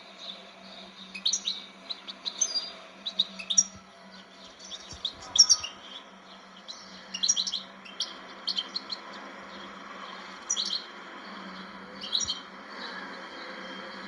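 European goldfinch of the Moroccan type singing: bursts of quick, high twittering notes with short pauses between them, over a steady low hum.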